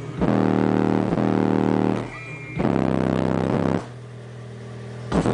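A 15-inch Lightning Audio Storm car subwoofer, driven by a Banda Ice 1800 amplifier, playing loud music. Two long held bass notes come with a short break between them, and the sound drops lower about four seconds in.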